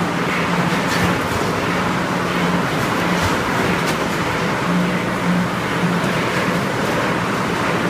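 Food packing line running: a vertical form-fill-seal packaging machine and its belt conveyors giving a steady mechanical noise, with a low hum that cuts in and out in short spells and a few faint clicks.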